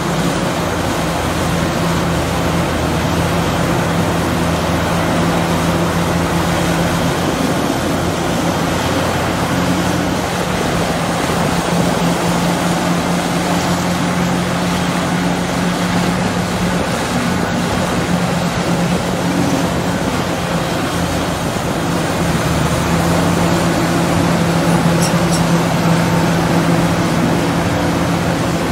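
Hydraulic excavator's diesel engine running steadily under working load, a constant hum with a wash of mechanical noise over it.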